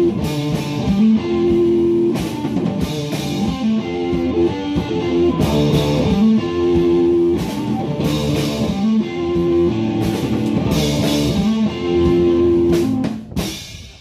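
Live band playing a repeated rock riff on electric guitars with a drum kit and cymbal crashes, stopping together near the end.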